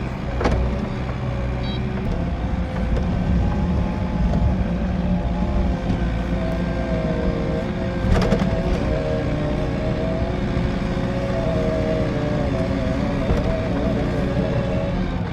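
Vehicle engine running steadily while moving through snow, with a wavering whine over the hum and a sharp knock about half a second in and another about eight seconds in.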